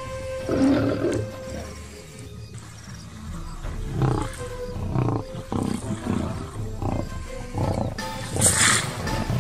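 Lions giving several short roars over background music with held notes.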